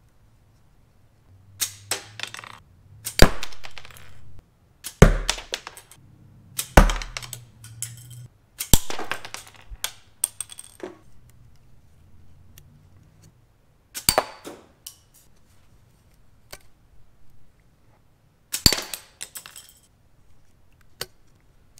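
A 3D-printed rubber-band mini crossbow being loaded and fired over and over: about six loud, sharp snaps and clacks, the three strongest a couple of seconds apart with a low thud, and lighter plastic clicks of handling between them.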